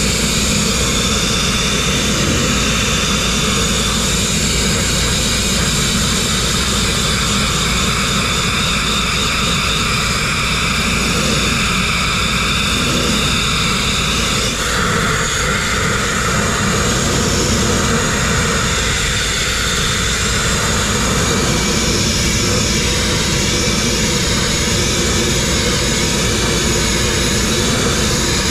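Abrasive grit blasting: a blast nozzle driving compressed air and grit against steel in a loud, steady hiss. The tone shifts briefly about halfway through.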